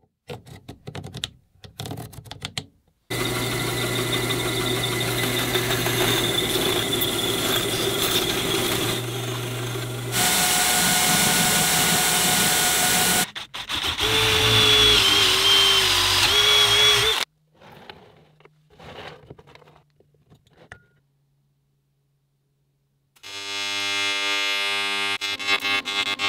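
Workshop tool sounds one after another. First come light metallic clicks of a bicycle chain being handled. Then a loud steady machine runs for about seven seconds, another runs briefly, and a cordless drill bores through a thin sheet clamped in a bench vise, its whine rising and falling for about four seconds. Near the end a steady-pitched buzz starts.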